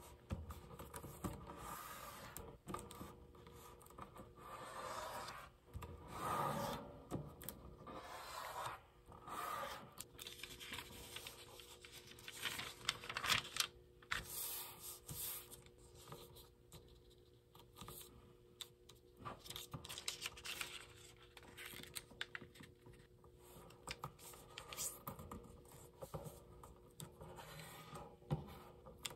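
A sheet of origami paper being folded by hand: irregular rustling and crinkling as it is lifted and turned, scratchy rubs as the folds are creased flat against the table, and small clicks from fingers and paper tapping the tabletop.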